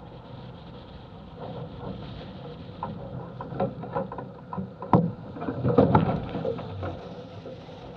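Lake water splashing and slapping against a small sailboat's hull as the hull tips over onto its side, with wind on the microphone. Irregular splashes throughout, the loudest about five and six seconds in.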